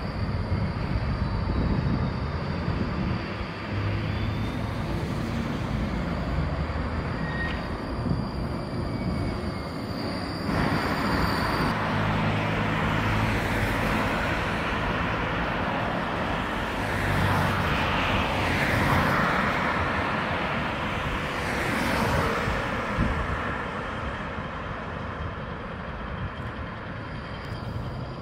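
Alstom NGT DX DD low-floor trams running along street track, mixed with passing car traffic. The sound changes abruptly about ten seconds in, and there are a few short rising and falling whines in the second half.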